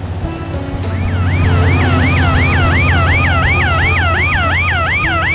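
Fast, repeating siren wail, rising and falling about three times a second, coming in about a second in over a children's background music track.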